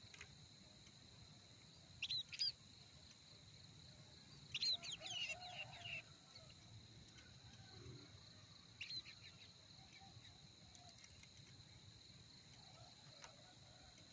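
Birds chirping in short, scattered bursts, the longest and loudest cluster about five seconds in. Under them runs a steady, high-pitched insect drone.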